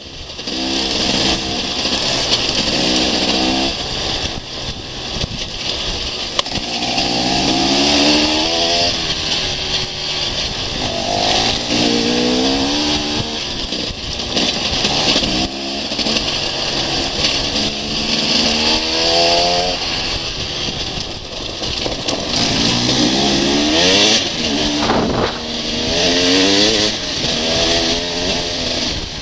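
Enduro motorcycle engine heard from on the bike, repeatedly revving up in rising pitch and easing back off as it is ridden over rough ground. A steady rush of wind noise on the microphone runs underneath.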